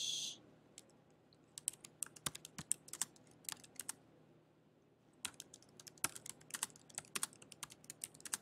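Typing on a computer keyboard: quick runs of key clicks, with a short pause about four seconds in before the typing picks up again.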